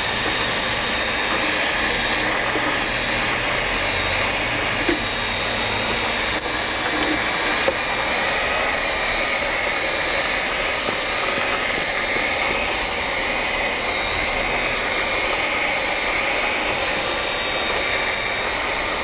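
Automatic hot air plastic welding machine running while it welds: the heat gun's blower rushes steadily, with a high whine over it.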